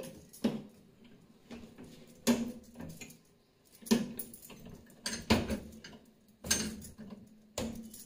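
Wire dish rack of an LG dishwasher clattering as it is handled: a string of separate light clanks and rattles, about one a second.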